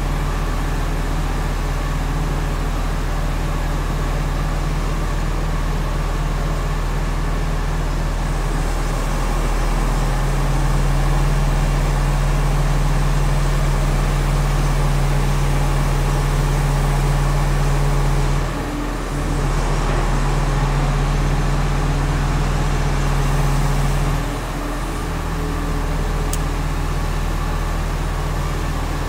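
Crane running with a steady low mechanical drone as it lowers a tamping machine bogie frame onto its wheelsets. The drone gets louder about a third of the way in and dips briefly twice in the second half.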